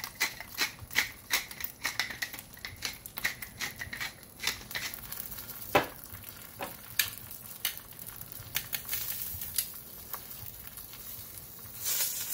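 Metal seasoning shaker shaken over a beef roast on a grill: a run of quick, sharp rattling clicks, two to three a second, thinning to occasional single clicks after about five seconds. A hiss starts near the end.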